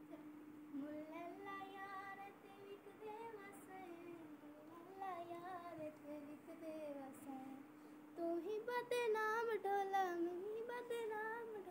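Background song: a high voice singing a slow, gliding melody over a steady held drone note, growing louder about eight seconds in.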